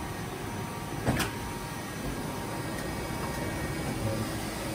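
Boehringer VDF 16-M 4 CNC lathe running under test, a steady mechanical hum with faint whining tones. A single sharp clunk comes about a second in.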